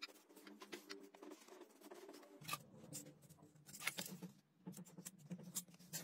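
Faint scratching and clicking of a blade scoring a rubber sheet along a steel ruler while the sheet is handled, with a faint low hum coming in about midway.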